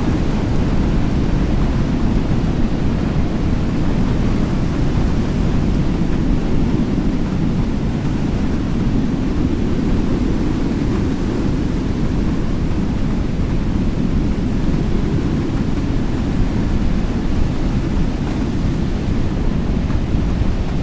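Steady, low rumble of strong storm wind rushing over the microphone, with no distinct hits or tones.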